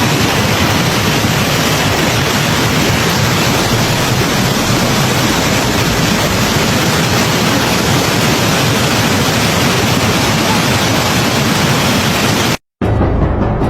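Loud, steady rushing of water, an even hiss-like noise, cutting off abruptly near the end. Low, sustained music notes begin just after the cut.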